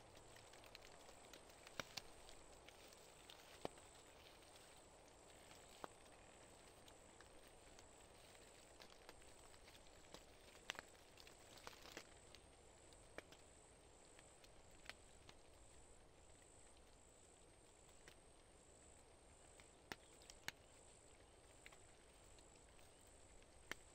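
Faint footsteps in dry fallen leaves: scattered short crunches and snaps every second or two over a quiet woodland background.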